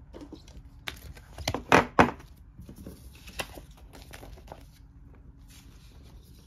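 Stiff cardstock player boards and paper booklets being handled and set down on a wooden tabletop: papery rustling with several sharp taps, the loudest about two seconds in and one more a little past three seconds.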